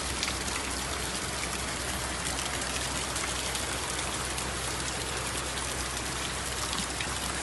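Heavy downpour, a steady dense patter of raindrops, over the rush of floodwater running through a street.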